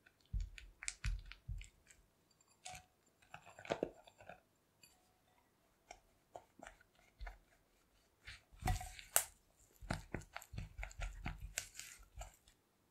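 Silicone spatula creaming softened butter, then butter with powdered sugar, in a glass bowl: irregular squishing and scraping strokes with small clicks against the glass.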